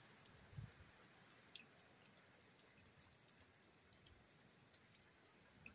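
Faint steady rain with scattered small drips and drops landing close by, and a soft low thump about half a second in.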